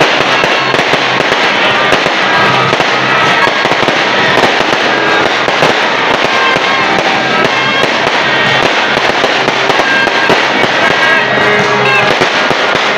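Aerial fireworks going off in a dense, unbroken run of crackles and bangs, with music playing underneath.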